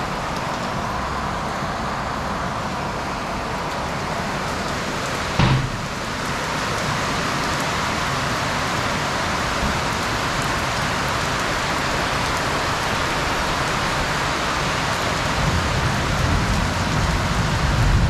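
Heavy rain pouring down steadily on roofs and ground. A single sharp thump comes about five and a half seconds in.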